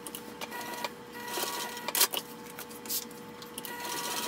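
Juki sewing machine running, basting D-ring tabs onto a zipper gusset: a steady motor hum, with the stitching picking up in two short stretches and a sharp click about two seconds in.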